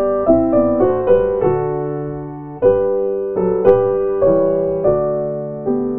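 Piano playing slow, gentle chords, each struck and left to fade, with a longer held chord partway through.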